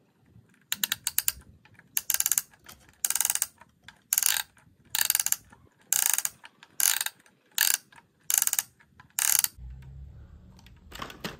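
Plastic winch of a toy crawler crane ratcheting as it is hand-cranked to wind in the hook line and lift a small toy tractor. The clicking comes in short bursts about once a second and stops about nine and a half seconds in.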